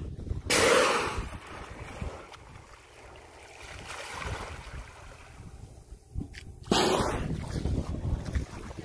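Killer whales surfacing beside the boat and blowing: two loud breathy whooshes from the blowhole, about half a second in and again about seven seconds in, each fading over about a second, with water washing against the hull between them.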